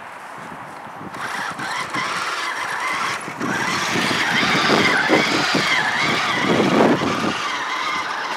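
Electric drive motor of a radio-controlled MAN rally truck model whining as it drives off over snow, starting about a second in and getting louder, its pitch wavering and dipping with the throttle.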